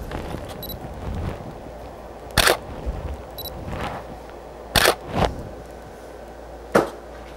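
Canon DSLR shutter firing three times, each a sharp click about two seconds after the last, with a fainter click just after the second. A short high electronic beep comes before each of the first two shots.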